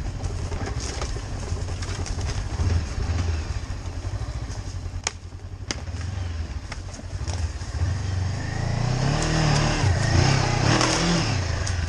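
Honda CB500X's 471 cc parallel-twin engine chugging at low revs on a rough dirt trail, with a few sharp knocks along the way. About eight seconds in it revs up louder and wavers in pitch for a few seconds, then drops back.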